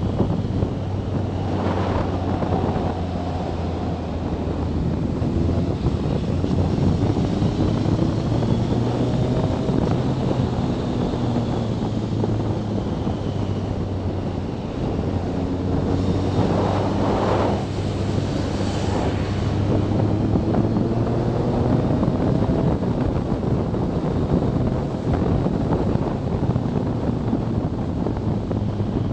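BMW K1300S inline-four motorcycle engine running on the move, its note rising and falling with the throttle, under heavy wind rush on the microphone.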